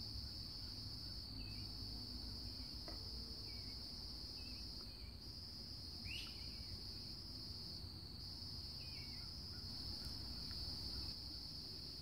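Insects trilling in a steady high-pitched drone, with a few faint, short bird chirps scattered through, one a little louder about halfway in.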